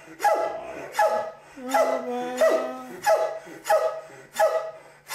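A big dog's high, small voice in a series of about eight short, pitched barking yelps, a little under two a second: its greeting call to its owner.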